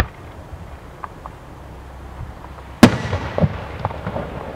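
Aerial firework shell bursting: a sharp crack at the very start, then just under three seconds in a loud boom followed by rolling echoes and scattered crackles.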